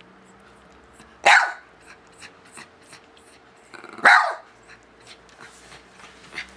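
Bichon Frise barking twice, two short loud barks about three seconds apart.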